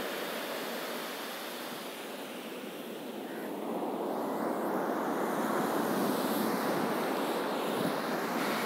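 Surf washing onto a sandy beach: a steady rush of waves that swells louder about three seconds in.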